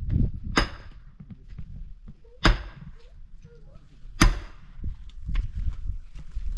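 Axe chopping wood: three sharp strikes, about two seconds apart.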